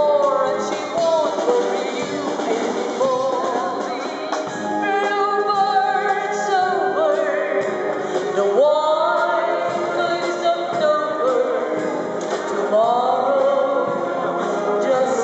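Music with a sung melody over instrumental accompaniment.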